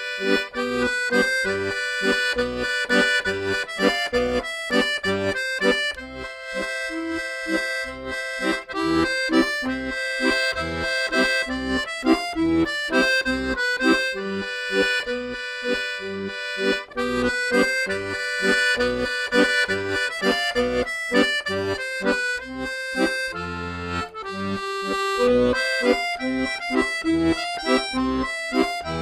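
Instrumental folk-style music led by an accordion, with a melody over a steady pulsing bass-and-chord rhythm.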